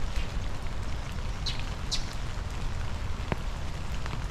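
Steady rain falling, with two short high bird chirps about half a second apart about one and a half seconds in.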